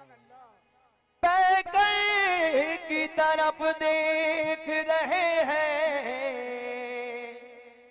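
Qawwali music: a singer's wordless, melismatic line of long wavering notes over a harmonium, starting suddenly about a second in and fading out on a held note near the end.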